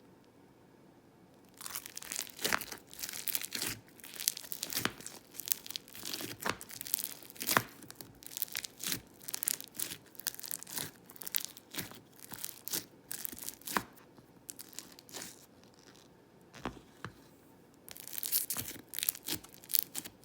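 Crunchy floam slime being worked by hand, crackling and popping in a run of sharp crunchy bursts as its foam beads and air bubbles are squeezed. It starts after a quiet second or so, with a short lull near the end before a last burst.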